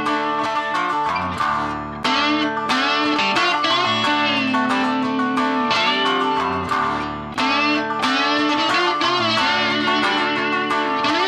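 Background music led by guitar, a steady run of plucked notes and chords.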